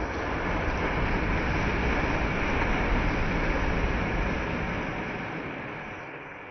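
Wind rushing over the microphone, a low buffeting rumble with a hiss above it, swelling to a peak about three seconds in and then fading away.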